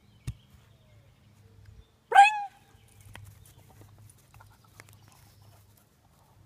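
A dog gives one short, loud bark about two seconds in, its pitch rising sharply then levelling. A sharp click comes just after the start.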